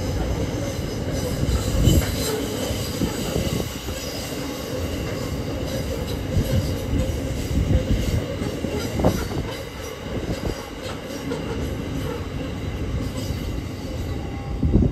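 Grain hopper wagons of a freight train rolling past on steel rails: a steady rumble with a high wheel squeal and occasional knocks from the wheels. The last wagon clears near the end.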